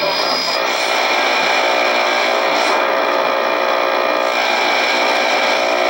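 Shortwave radio receiver on the 49-meter band giving out a steady hiss of static with faint steady tones under it, no clear signal coming through.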